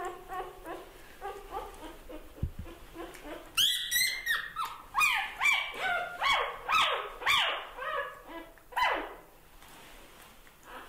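Newborn puppy whimpering and squealing in short, high cries that rise and fall. They are faint at first, come thick and loud from about a third of the way in, and end with one longer falling cry.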